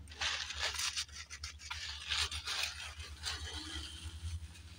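Paper napkin rustling and scraping close to the microphone, in a series of short scratchy bursts that ease off in the second half.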